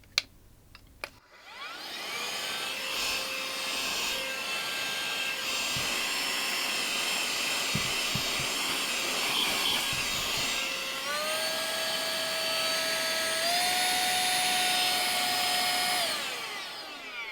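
Handheld cordless vacuum cleaner switched on and running on its repaired, spot-welded battery pack: a click, then the motor whines up to speed and runs steadily. Its whine steps up in pitch twice later on, and it winds down with a falling pitch near the end.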